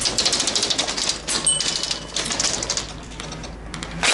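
Airsoft electric guns firing rapid full-auto bursts, a fast mechanical clatter of shots. The bursts thin out about three seconds in, and a loud burst starts again right at the end.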